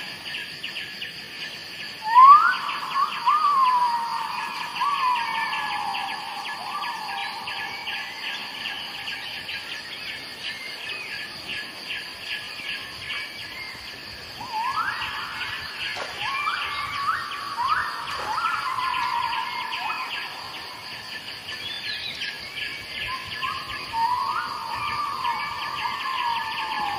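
Birdsong: whistled calls that sweep sharply up and slide back down in pitch, coming in three bouts, the loudest about two seconds in, over a steady high chirring of insects.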